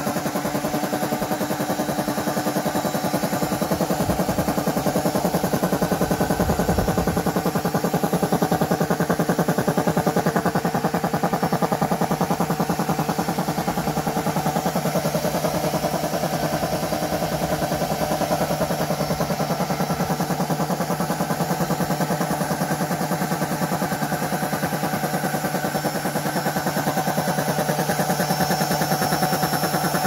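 Homemade piston air compressor running steadily: a washing machine motor driving the belt-driven compressor pump, with a fast, even pumping rhythm.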